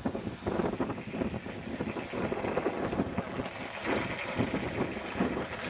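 Radio-controlled J3 Cub model airplane on skis taxiing after landing, its motor and propeller running steadily.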